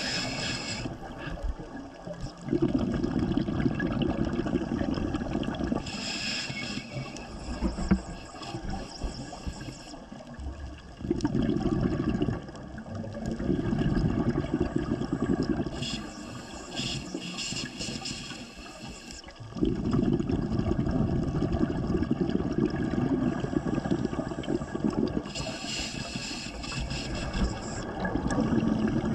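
Scuba regulator breathing underwater: a short hissing inhale followed by a longer low bubbling exhale, about three breaths in a slow steady rhythm.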